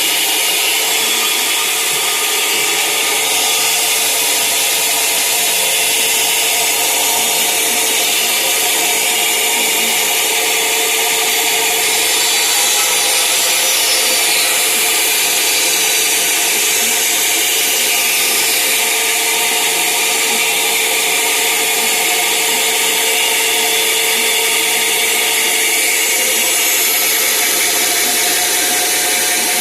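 Band saw running steadily and loud, a constant hum under a dense noise of the blade.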